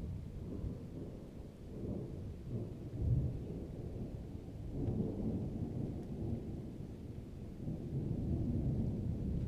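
Low rumbling ambience that swells and fades several times, loudest about three seconds in.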